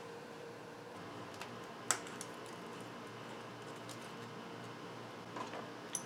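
Quiet room tone with a few faint clicks and taps of hands and tools on engine parts, the sharpest about two seconds in.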